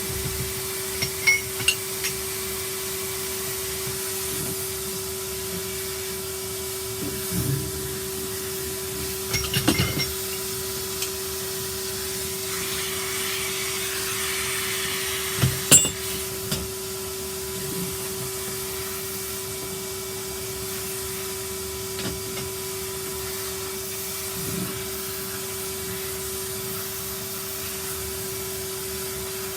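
Vacuum cleaner running steadily with a constant hum and hiss. A few sharp knocks and clatters come through in small clusters, the loudest about sixteen seconds in.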